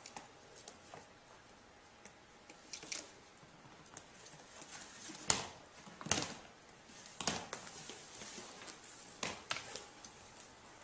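Rubber pig toy being dragged by a ferret across a hardwood floor: scattered brief scuffs and bumps, the loudest about five and six seconds in.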